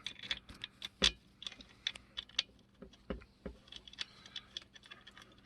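Light clicks and taps of chainsaw parts being handled and fitted during assembly. A sharper knock comes about a second in, and a couple more around three seconds.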